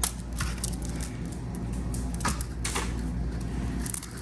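Plastic bead costume jewelry clicking and rattling a few times as it is picked up and handled.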